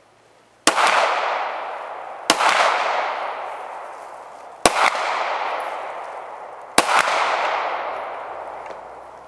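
Four pistol shots, about two seconds apart, each trailing off in a long echo.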